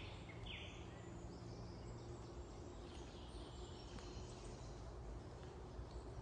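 Birds chirping over a steady low background rumble, with short high chirps in the first second and fainter calls after, and a single sharp click about four seconds in.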